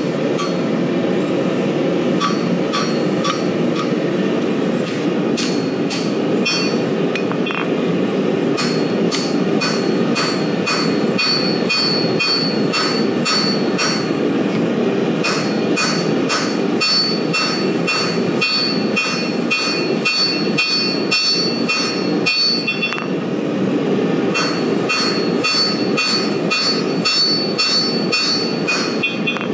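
Hand hammer striking a hot carbon-steel knife blade on a steel anvil, about two to three ringing blows a second, with short pauses about 14 and 23 seconds in: hammering in the bevels along the blade's edge. A steady roar runs underneath.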